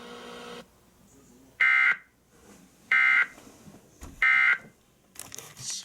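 Emergency Alert System end-of-message code: three short, identical buzzy data bursts, each about a third of a second long and spaced a little over a second apart. They mark the end of the severe thunderstorm warning broadcast. A brief hiss follows near the end.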